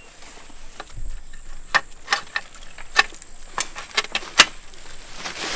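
Irregular sharp clicks and knocks from the metal frame and fittings of a climbing tree stand as it is unhooked and handled, the loudest about four seconds in, then a rustling hiss near the end.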